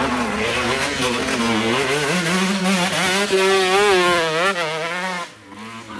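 Enduro motorcycle engine revving hard, its pitch wavering up and down as the throttle is worked, then dropping away sharply about five seconds in.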